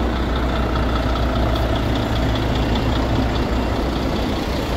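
Intercity coach's diesel engine idling steadily at the platform, a low even hum.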